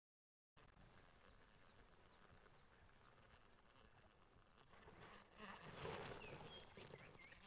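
Faint outdoor swamp ambience with a steady high insect buzz and a few short bird chirps; about five seconds in, close rustling of the angler's sleeve and fishing rod handling against the microphone grows louder. It opens with half a second of dead silence at an edit.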